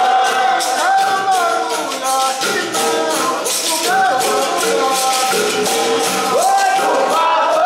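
Capoeira roda music: berimbaus with shaker and jingle percussion keeping a steady rattling beat, with voices singing a melody over it.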